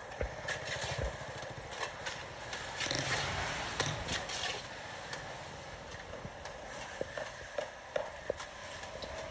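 Irregular knocks and taps of manual building work, over a steady background hiss.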